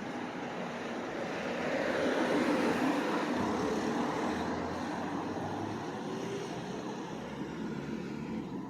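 A motor vehicle passing on a city street amid traffic noise, growing louder to a peak about two to three seconds in, then slowly fading.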